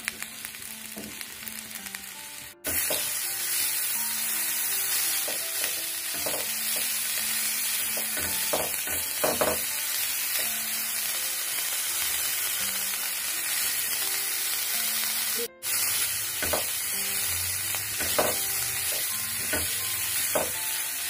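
Cauliflower florets shallow-frying in sunflower oil in a nonstick pan: a steady sizzle, with now and then the scrape and knock of a silicone spatula turning them. The sound cuts out briefly twice.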